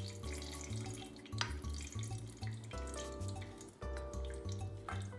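Background music with a bass line, over a wooden spoon stirring wet browned ground beef in a stainless steel colander, with scattered scrapes and taps and the meat juice draining and dripping.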